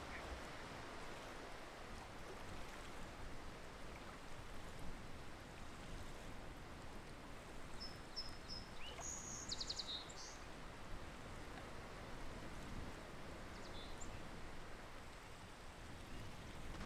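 Steady outdoor marsh ambience, an even background hiss. A little past halfway a bird gives a brief high-pitched call of rapid chirps, and near the end there is one short, faint call.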